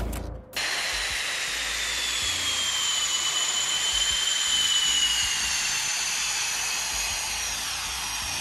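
Spanish Air Force EF-18 Hornet's twin General Electric F404 jet engines running on the ground: a steady high-pitched whine that drifts slowly lower in pitch.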